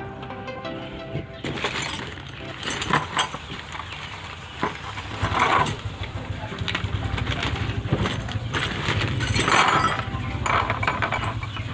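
Clear plastic packaging bag crinkling and rustling in the hands, in uneven bursts, loudest about halfway through and again near the end, over the light clinks of chainsaw parts being handled.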